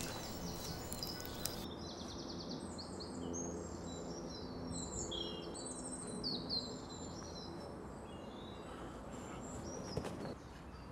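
Songbirds chirping and singing in woodland: many short, quick calls, busiest in the first half and thinning out later, over a faint steady background hum.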